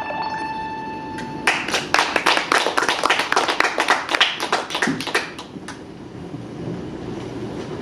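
The song's last held synth note cuts off, and a small audience breaks into applause for about four seconds, which then dies away to quiet room noise.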